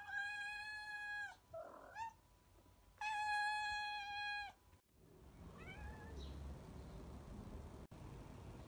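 A cat meowing twice: two long drawn-out meows held at a steady pitch, about three seconds apart, with a short squeaky call between them. About five seconds in they give way to a faint outdoor background with a few short high chirps.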